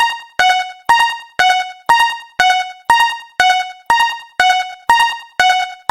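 Japanese railroad crossing warning bell ringing at a steady two strikes a second, each strike a bright ringing ding that dies away before the next.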